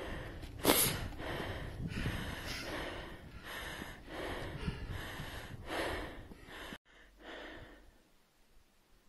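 A person breathing hard from exertion while scrambling up a steep rocky ridge, a breath every half second to a second, over wind buffeting the microphone. About seven seconds in, the sound drops off abruptly and stays much quieter.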